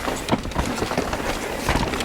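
Mountain bike rolling over a rough trail: a steady rush of tyre noise and rumble with many small rattles, knocks and clicks from the bike.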